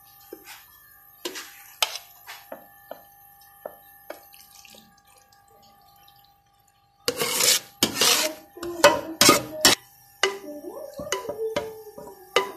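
A metal spoon scraping and clinking against a steel pot and plate as a vegetable mixture is tipped onto boiled macaroni and stirred in. Light scattered clicks at first, then a run of loud scrapes and knocks from about seven seconds in.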